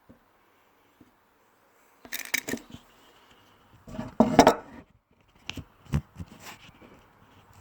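Handling noise close to the microphone: a few short bursts of clatter, knocks and rustling as things are moved and set in place, the loudest a little over halfway through.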